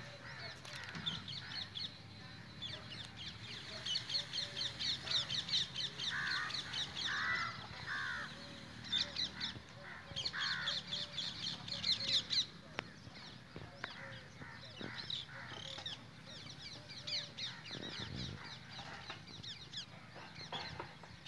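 Birds calling outdoors: three long spells of rapid, high-pitched chattering chirps, with a few lower, harsher calls in between.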